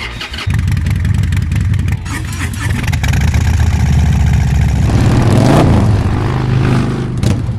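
Motorcycle engine running loudly with a fast, pulsing exhaust note, swelling to a peak about five to six seconds in and easing off near the end.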